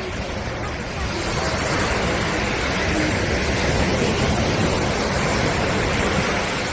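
Sea waves breaking on a beach: a rush of surf that swells about a second in and ebbs away near the end.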